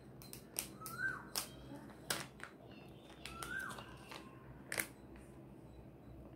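Sharp clicks and taps of colouring supplies being handled, such as colour pens and their caps, scattered irregularly, with two short rising-and-falling chirps about one and three and a half seconds in.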